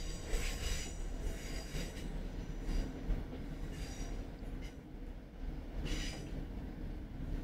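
Class 156 diesel multiple unit heard from inside the carriage on a curve: a steady low rumble of the running train, with high-pitched wheel squeal from the curve coming and going, strongest near the start.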